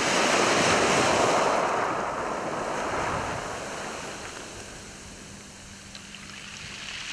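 Small waves breaking and washing up over a shingle beach, water surging through the pebbles. The wash is loudest in the first couple of seconds, swells once more, ebbs away, then builds again with the next wave near the end.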